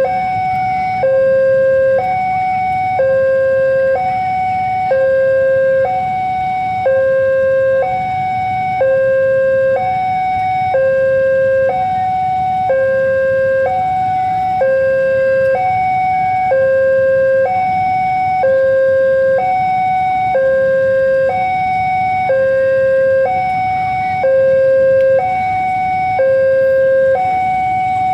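Railway level-crossing warning alarm sounding a two-tone electronic signal, switching between a lower and a higher tone about once a second, the barrier-down warning that a train is approaching.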